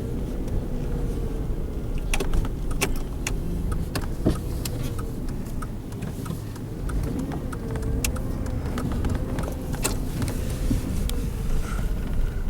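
A motor vehicle engine running with a steady low rumble and a wavering whine, over which come scattered sharp clicks and ticks.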